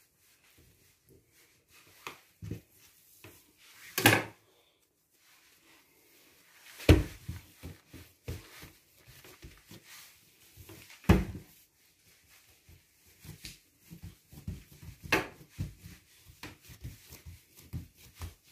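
Hands working yeast donut dough on a laminate worktop: a few scattered knocks, with two heavier thumps about seven and eleven seconds in as the knife-halved dough is moved and set down, then a run of light, quick pats as a dough half is pressed flat by hand.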